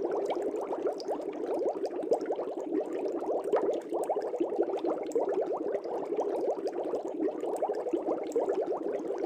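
Air bubbles rising through aquarium water, a steady stream of many small quick bubbly blips.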